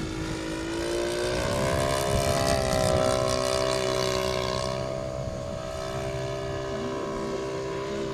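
Radio-controlled model airplane engine and propeller running, the pitch climbing about a second in as the throttle opens, holding steady, then easing off slightly about five seconds in.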